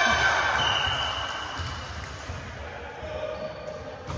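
Players' voices in an echoing gymnasium dying away between volleyball rallies. A referee's whistle sounds once about half a second in, a thin steady tone held for about a second and a half. A single sharp ball hit comes near the end.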